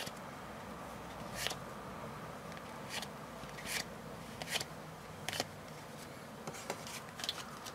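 Game cards being handled: a few separate soft flicks and taps as cards are slid apart in the hands and a deck is set down on the table, over a faint steady room hum.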